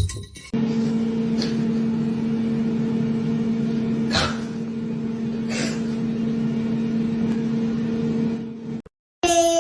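Steady machine hum with a low, even tone, and a few faint clicks over it, cutting off suddenly near the end.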